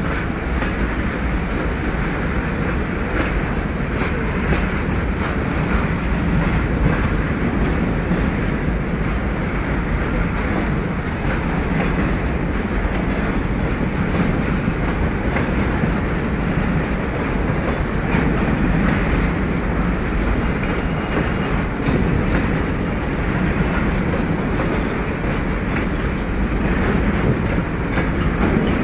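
Goods train of covered wagons rolling steadily past: a continuous loud rumble of wheels on the rails, with the clickety-clack of wheels running over rail joints.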